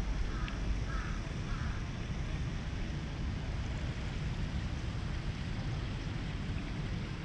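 Sea water and wind on the microphone at the shore make a steady low rush, with three short calls in quick succession in the first two seconds.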